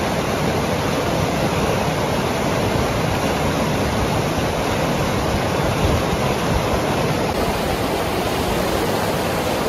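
Fast-flowing mountain river rushing: a steady, dense, even sound of running water.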